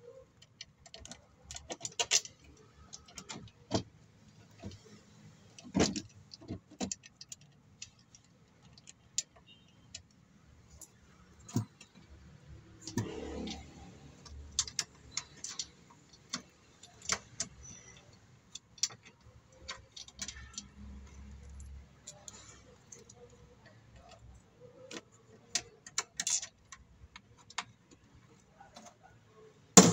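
Irregular metal clinks, taps and knocks of bolts, nuts and a hand tool being handled on a painted steel battery mounting bracket. A brief scraping sound about 13 seconds in, and a sharp knock near the end, the loudest sound.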